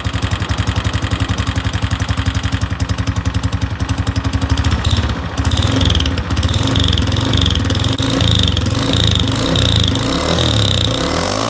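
Honda CG 125 Fan's single-cylinder four-stroke engine running at idle through an ML Competition aftermarket sport exhaust, with a loud, even pulsing beat. About five seconds in it gets louder and less even as the throttle is opened a little.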